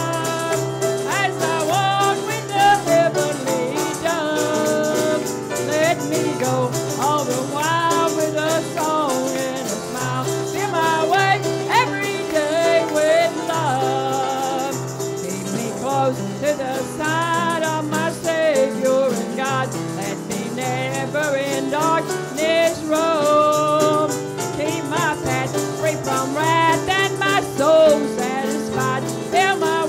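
A gospel hymn sung with a woman's voice leading through a microphone, over a steady bass line and a shaken rattle keeping the beat.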